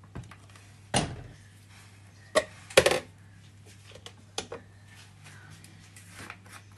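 A few separate sharp knocks and clinks of kitchen containers and utensils being handled, the loudest about three seconds in, over a low steady hum.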